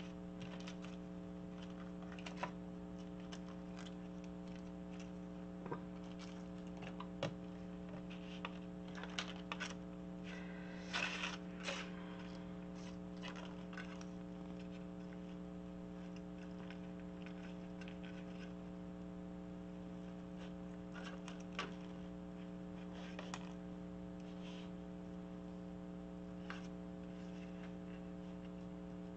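Faint handling noises over a steady electrical hum: scattered small clicks and rustles of ribbon and a plastic sleeve being handled on a desk, busiest about a third of the way through.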